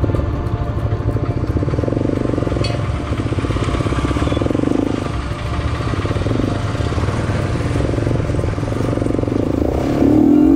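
Motorcycle engine running at low revs, heard from the rider's seat as the bike pulls away and rolls across a railway crossing; it gets louder near the end.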